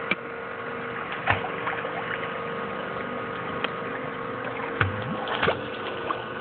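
Pool water sloshing and a few short splashes as an Old English Bulldog wades on a submerged pool step and pushes off to swim, over a steady hum.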